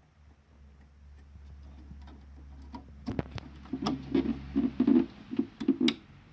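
Plastic parts of a BMW E60 headlight assembly being handled and pressed together: a run of sharp clicks and knocks from about three seconds in, one of them the click of a part locking into place.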